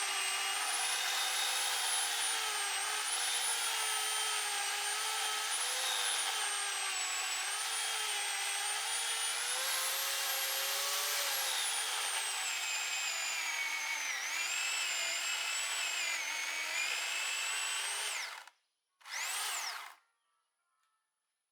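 Electric power tool motor whining while cutting a wet walnut log, its pitch wavering up and down with the load. It shuts off about 18 seconds in, runs again briefly for about a second, then stops.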